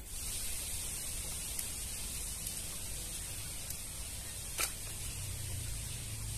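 Steady outdoor background hiss with a faint high-pitched band on top, and one sharp click about four and a half seconds in.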